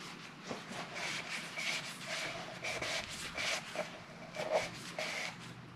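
Paper shop towel rubbing around the oil filter housing cap, a run of short wiping strokes about two or three a second.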